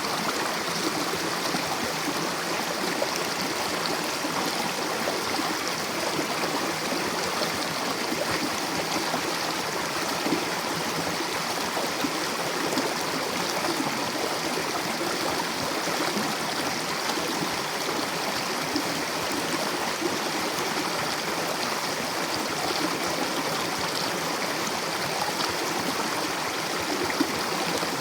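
Mountain river rushing and gurgling over rocks, a steady, even flow of water.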